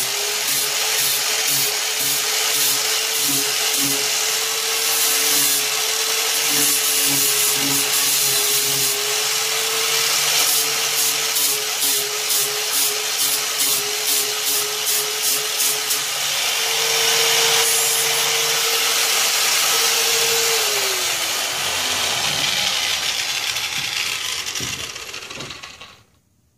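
Angle grinder with a sanding disc grinding down a fiberglass repair on a golf cart's front panel: a steady motor whine under a rasping hiss, with a run of quick, regular passes in the middle. About twenty seconds in it is switched off and winds down, its pitch falling until it stops.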